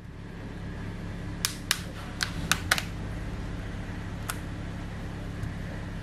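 About six sharp, short clicks, most in quick succession in the first half and one more a little later, as a smartphone is handled and worked at by hand on a work mat. A steady low hum runs underneath.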